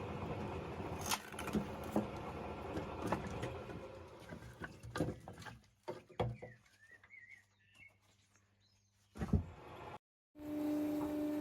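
Mechanical clatter of a homemade firewood-splitting machine at work, with repeated sharp knocks of wood and metal. It dies down about halfway through, leaving scattered faint knocks and one loud knock near the end. Then comes a brief silence and a steadier machine hum starts.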